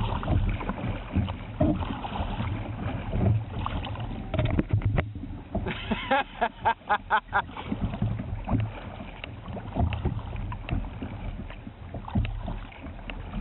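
Water and wind noise around a fishing kayak, uneven and heaviest at the low end, with a quick run of sharp clicks about six to seven seconds in.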